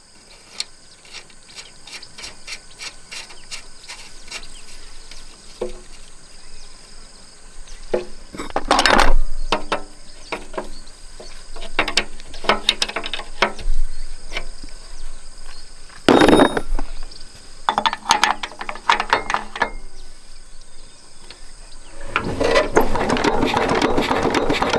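Metal clicking and clanking of a spanner working the fuel-injection line nut at the injector of a small single-cylinder diesel engine, with several louder bursts of clanks. Near the end a longer, denser rattling noise comes while diesel spurts from the loosened line, showing the injection pump's uneven delivery.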